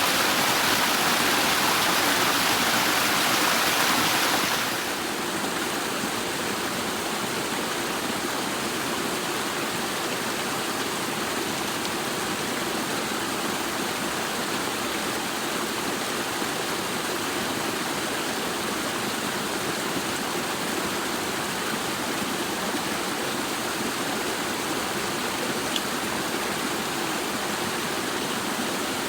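Steady rush of flowing water from a mountain river. It is louder and brighter for the first four or five seconds, then drops a little and stays even.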